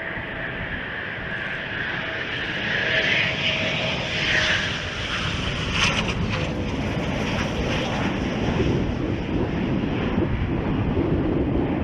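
Eurofighter Typhoon's twin jet engines running: a steady rush with a high whine in the first half, growing louder toward the end.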